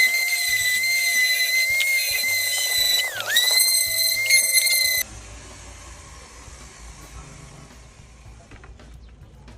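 Electronic speaker-test audio: a steady high-pitched tone with overtones over an evenly pulsing low beat, the tone dipping sharply in pitch and back about three seconds in. It cuts off abruptly about five seconds in, leaving a much quieter low rumble and hiss.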